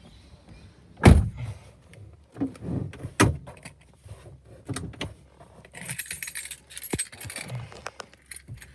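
A Holden VE Commodore Sportwagon's door shutting with a solid thump about a second in, followed by a few lighter knocks. Near the end comes a jangle of keys.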